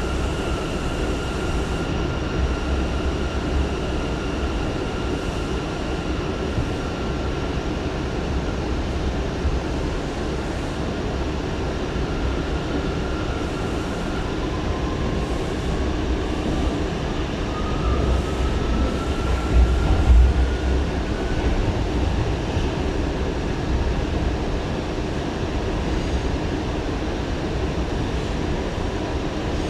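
Running noise of an R179 subway car with Bombardier MITRAC propulsion, heard from inside the car: steady wheel-and-rail rumble with a motor whine. The whine fades about halfway through, then a new whine rises in pitch over several seconds while the rumble briefly grows louder.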